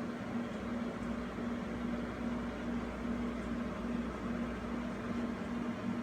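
Steady machine hum and hiss, with a low buzzing tone that pulses evenly.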